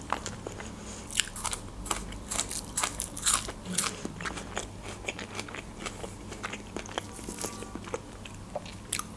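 Biting and crunchy chewing of a raw green onion: a quick string of sharp crunches in the first few seconds, thinning out to scattered smaller ones.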